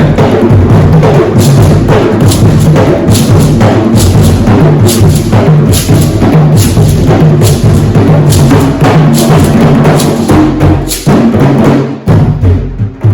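Drums playing a fast, dense, loud rhythm of sharp slaps over deep booming tones, breaking up into separate strikes near the end.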